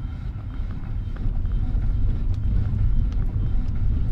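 Low, steady rumble of a car driving slowly over a rough gravel road, heard from inside the cabin: engine and tyre noise, growing a little louder about a second in, with a few faint ticks.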